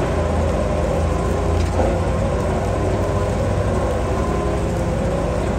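Compact wheel loader's engine running steadily with a low rumble as the machine moves slowly along carrying a load.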